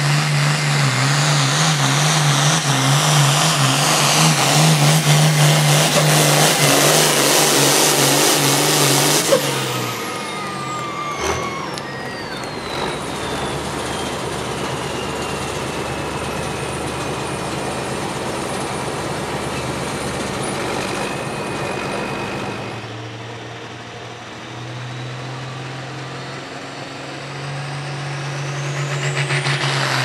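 Hot farm pulling tractor's turbocharged diesel engine running hard at high throttle, then shutting off sharply about nine seconds in, leaving a long high whistle, typical of a turbo spooling down, that falls slowly in pitch. The engine then settles to a lower steady run, and near the end it revs up again with the whistle rising.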